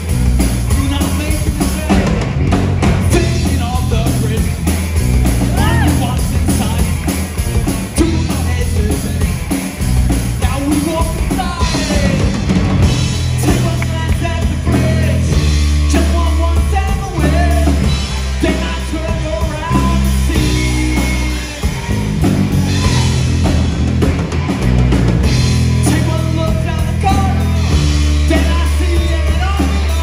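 A rock band playing live on stage: drum kit and band with a sung lead vocal, in a punk-rock style.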